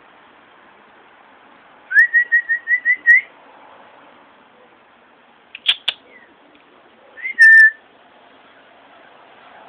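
A person whistling to call a dog. About two seconds in comes a quick run of about seven short, even whistles; a little later, two sharp mouth clicks; near the end, one longer whistle that rises and then holds its pitch.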